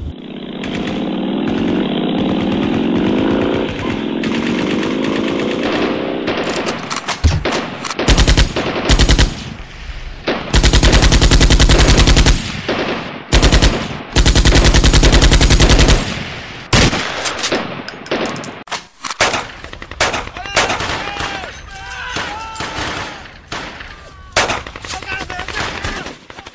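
A sidecar motorcycle's engine running for the first few seconds, then a machine gun firing blanks in repeated bursts, the two longest near the middle, followed by scattered single shots and shouting.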